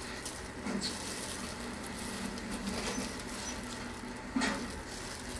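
Thin plastic gloves and fish cake sheets rustling and crinkling as fish cakes are threaded onto wooden skewers by hand, with a louder rustle a little past four seconds in, over a steady low hum.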